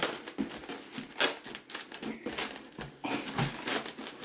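Packaging being handled while unboxing, styrofoam and box parts rustling and clicking irregularly, with a sharper knock about a second in.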